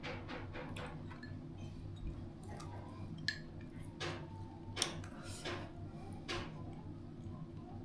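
Kitchen clatter of dishes and utensils: a quick run of light clicks that dies away about a second in, then scattered clinks and knocks, one ringing briefly.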